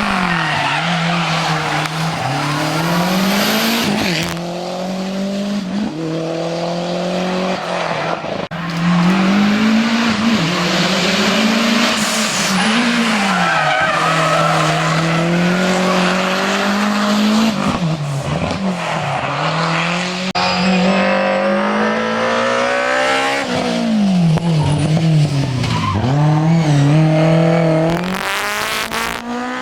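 Historic rally car engine at full throttle on a special stage, its revs repeatedly held high, then dropping and climbing again through gear changes and lifts for corners, with tyre squeal.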